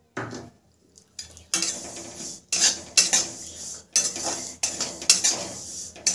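Flat steel spatula scraping and stirring sesame seeds around a metal kadhai in repeated strokes, about two a second after a brief pause near the start, as the seeds are dry-roasted over the gas flame.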